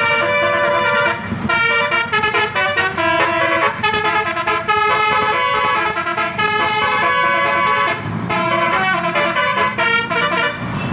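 An Indonesian bus's basuri (telolet) musical horn playing a quick tune, several tones sounding together and changing note every fraction of a second.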